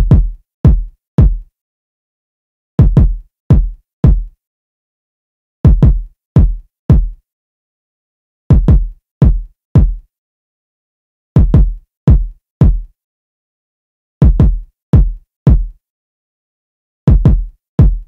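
Electronic drill kick drum loop at 168 BPM, played on its own: deep kicks, each with a sharp click at the start, in clusters of three or four with silent gaps between. The pattern repeats about every three seconds.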